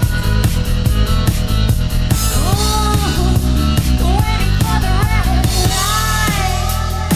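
Background music with a steady, fast drum beat and a melody line that bends up and down in pitch.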